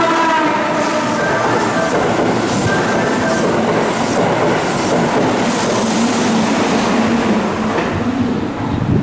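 A Keihan 3000-series electric train's horn sounds and cuts off about half a second in. The train then passes through the station at speed, its wheels and cars making a loud, steady rush of rail noise that eases near the end.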